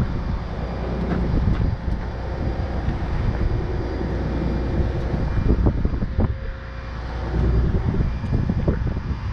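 A heavy machine's engine running steadily under load, easing off about six seconds in and picking up again, with a few short knocks and clanks.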